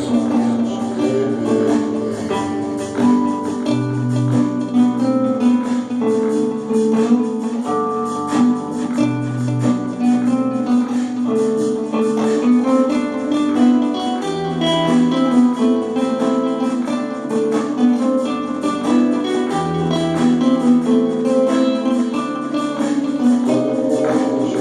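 Instrumental music: acoustic guitar playing over a drum machine keeping a steady beat.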